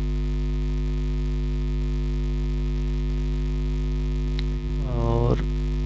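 Loud, steady electrical mains hum: a low drone with a stack of steady overtones, picked up on the recording. A single brief click sounds about four seconds in.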